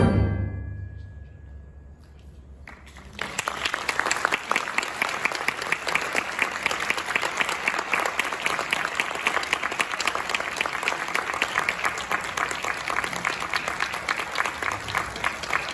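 A concert band's final loud chord cuts off and rings away in the hall over a couple of seconds. About three seconds in, an audience starts applauding, dense and steady.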